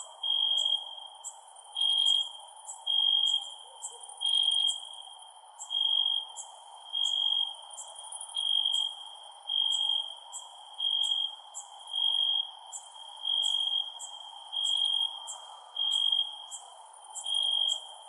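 Crickets chirping. One gives a steady high-pitched chirp about half a second long, roughly once a second, while a second insect adds shorter, higher chirps in a regular rhythm over a faint background hiss.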